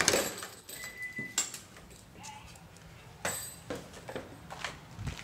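A French bulldog and a person moving about on foot, with scattered knocks, scuffs and footsteps, the loudest knock right at the start, and a brief high squeak about a second in.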